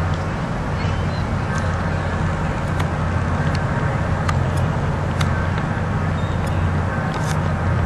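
Steady low engine drone over outdoor traffic noise, with a few sharp clicks scattered through.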